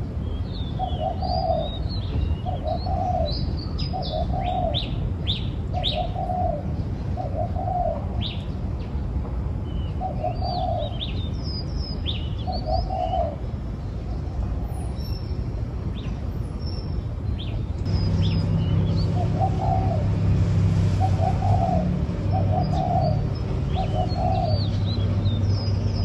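Spotted dove cooing: a series of short coos about once a second, a pause of several seconds, then another run, with small birds chirping high above it. A low steady hum comes in about two-thirds of the way through.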